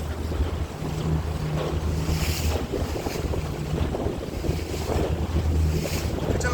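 A small boat's motor running with a steady low hum, under wind buffeting the microphone and the wash of water against the hull.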